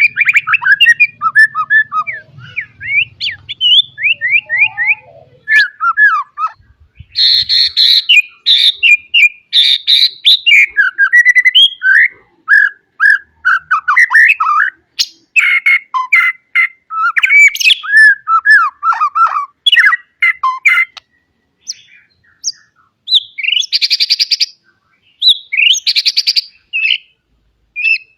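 White-rumped shama singing a long, varied song of rapid whistled and chattering phrases that sweep up and down in pitch, with a couple of short pauses near the end.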